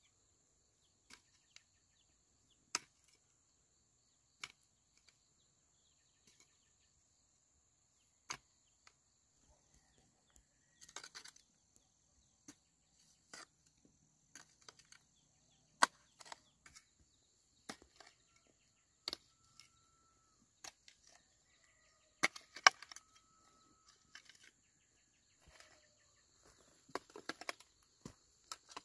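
Scattered sharp knocks and clicks at irregular intervals, a second or more apart, over a faint steady high-pitched drone.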